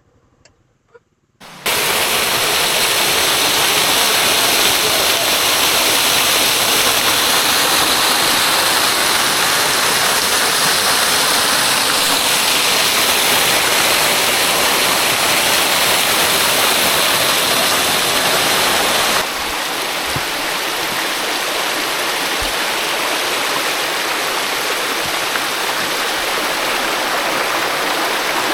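Waterfall rushing, a loud, steady sound of falling water that starts abruptly about a second and a half in and drops slightly in level about two-thirds of the way through. The creek is running high after days of rain.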